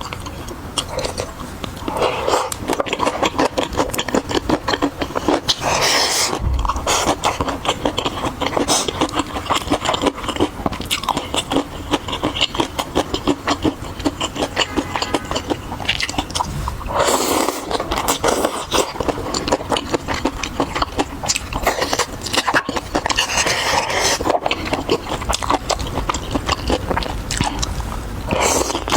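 Close-miked eating: steady chewing full of small wet clicks, with louder bites every few seconds.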